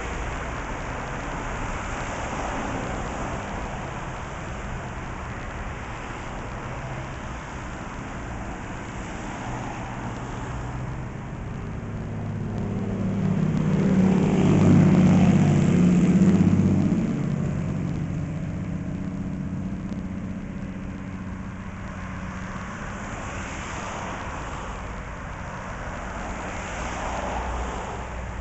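Steady outdoor traffic noise. A vehicle passes close by about halfway through, its engine growing louder and then fading away.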